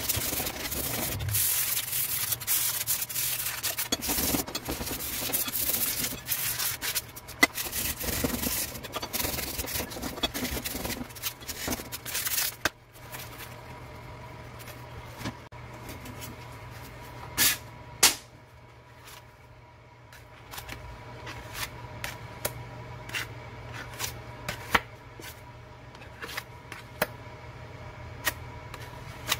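Sandpaper rubbed by hand in fast strokes over a steel bracket clamped in a vise, for about twelve seconds. Then the rubbing stops and scattered light metal clicks and taps follow, two louder ones about five seconds later.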